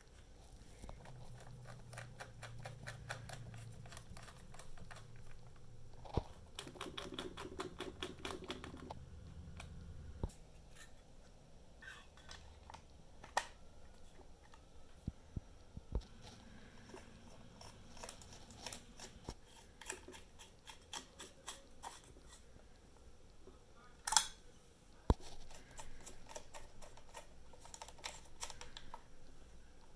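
Small screws being turned with a precision screwdriver into the plastic body shell of a DJI Inspire 2 drone, with light clicks and handling taps. There are runs of quick ticking about seven seconds in and again past the middle, and a sharper click near the end.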